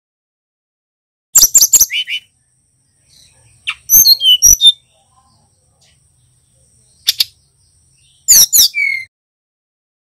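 Brown-chested jungle flycatcher singing in four short bursts of quick, sharp chirps that slide down from high pitch, two of the phrases ending on a lower whistled note. A faint thin steady high whine runs behind the middle of the song.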